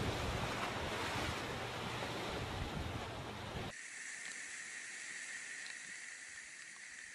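Strong wind buffeting the microphone over a rough, wind-whipped sea. About three and a half seconds in it cuts abruptly to a much quieter steady hiss of small waves washing onto a beach, with faint scattered ticks.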